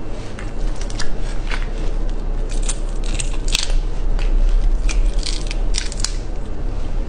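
Shell of a large red prawn being cracked and torn apart by hand: a run of crisp crackles and snaps, thickest about three and a half seconds in and again around five to six seconds in, over a steady low hum.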